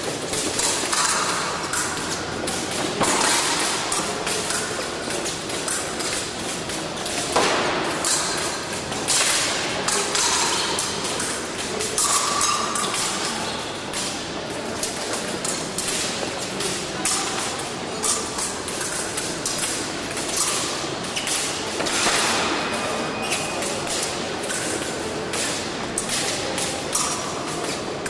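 Fencers' footwork on the piste and épée blades meeting: a busy run of sharp knocks, taps and thuds in a large, echoing hall, over a steady hall murmur.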